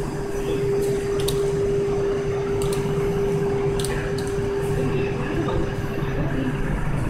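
Fuel being poured from a plastic jerrycan into a forklift's fuel tank. A steady hum runs underneath and fades about five seconds in.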